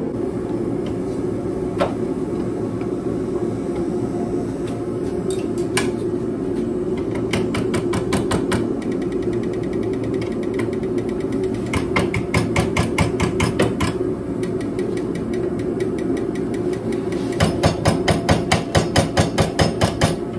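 Runs of quick hammer strikes, several a second, on a steel knife blade clamped in a bench vise; the last run is the loudest and most regular. A steady roar from the propane forge's burners runs underneath.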